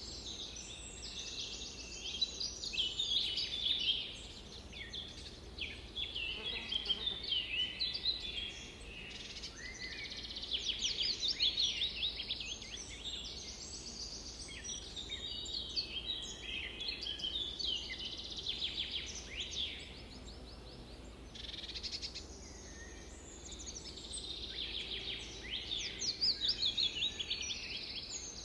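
Several songbirds chirping and trilling together: many quick, overlapping high calls with fast rising and falling notes and rapid trills, dipping briefly a couple of times.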